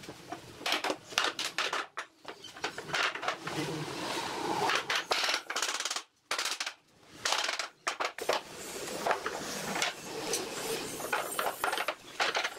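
A run of sharp knocks and clicks over scraping noise, broken by a few short quiet gaps.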